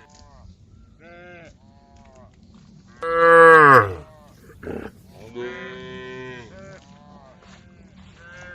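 Several cows mooing, one call after another. The loudest is a long moo about three seconds in that drops in pitch as it ends, followed by a longer, steadier moo a couple of seconds later and shorter calls in between.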